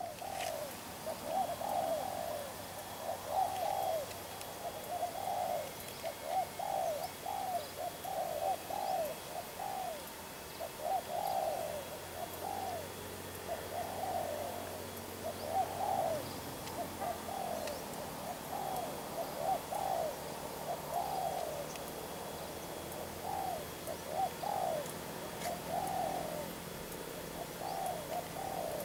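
Spotted dove cooing over and over: short rising-and-falling coos in groups of two or three, repeating every second or two.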